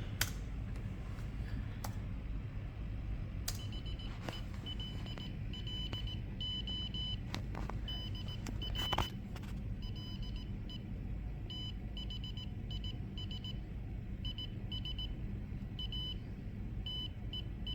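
A buzzer beeps out Morse code, a high tone keyed on and off in short dots and longer dashes, sending the typed message "Hello, Dr. Lay, this is a test." A few clicks come before the beeping starts and again around nine seconds in, over a steady low hum.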